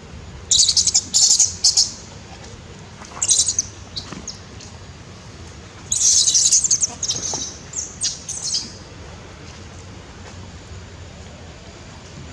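Young macaques screaming in a series of short, shrill bursts, the longest about six seconds in.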